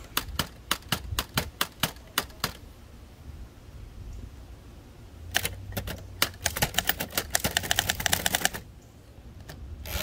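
1925 Remington Model 2 portable typewriter being typed on: quick keystrokes with the typebars striking, a pause of a few seconds, then a fast dense run of keystrokes and a few last strokes near the end.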